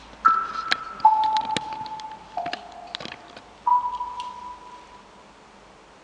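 Four single ringing notes sound one after another, each starting sharply and fading over about a second. They step down in pitch twice, then the last one is higher. Scattered sharp clicks come with the first three notes, and the sound dies away about five seconds in.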